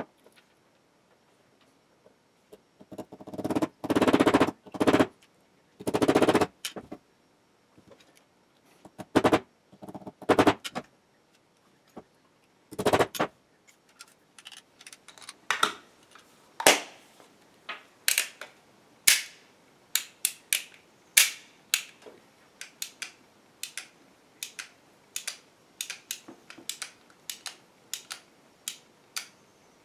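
Metal parts of an Umarex Colt SAA CO2 revolver being handled and fitted together, with a few seconds of rubbing and scraping about three seconds in, then a long run of sharp mechanical clicks, about two or three a second, from the second half on as the hammer is cocked and the cylinder turned on the reassembled gun.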